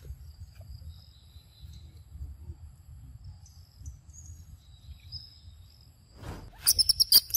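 Faint chirring of insects, over a low rumble. Near the end comes a quick run of loud, sharp clicks.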